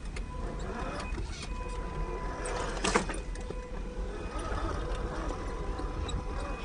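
Electric drivetrain of an Axial SCX10 II RC rock crawler whining as it crawls, its pitch wavering with throttle, with scattered clicks and knocks from the chassis and tyres on rock and one sharp knock about three seconds in.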